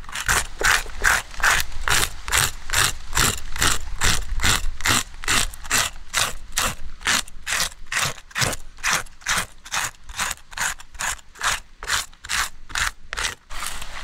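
A blade scraping the scales off a large giant trevally in quick, even strokes, about three a second.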